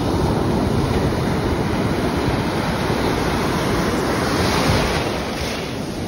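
Ocean surf: waves breaking and white water rushing and foaming through the shallows, a loud steady wash that swells louder about three-quarters of the way through.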